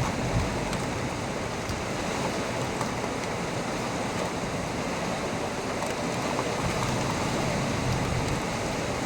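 Heavy thunderstorm rain pouring steadily, a dense even hiss with faint scattered drop ticks, and a brief low thump about half a second in.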